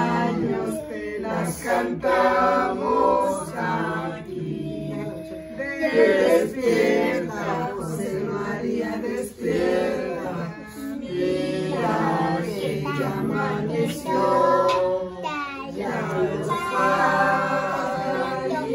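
A mixed group of men's and women's voices singing a birthday song together, unaccompanied.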